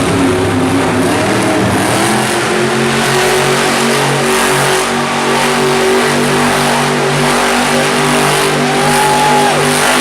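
Monster truck's supercharged V8 engine running hard at high revs, steady and loud, as the truck spins donuts. A short tone that rises and falls sounds near the end.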